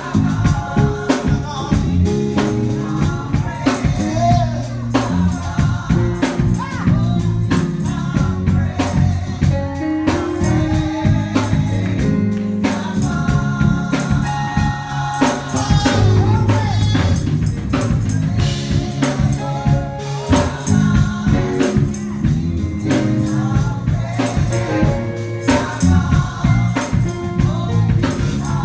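Live gospel band playing: keyboard, bass guitar and drum kit, with singing and a tambourine struck along to the beat.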